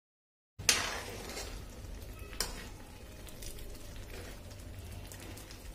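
Thick pav bhaji simmering and sizzling in a metal kadai while a steel ladle stirs it, with a sharp click of the ladle against the pan about a second in and another near the halfway point.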